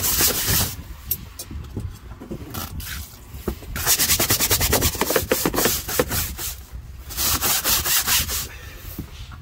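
Blue hand scrub brush scrubbing a wet fibreglass cockpit floor in quick back-and-forth strokes. The strokes come in bursts with short pauses between them.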